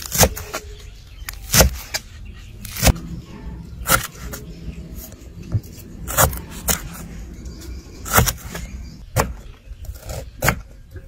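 Large kitchen knife chopping through greens, lemongrass and a ginger-like root on a wooden chopping board: about nine sharp chops, irregularly spaced.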